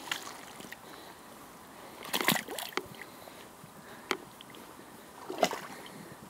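Boots wading through shallow water, splashing and sloshing with each step. There are a handful of splashes, the loudest about two seconds in and again about five seconds in.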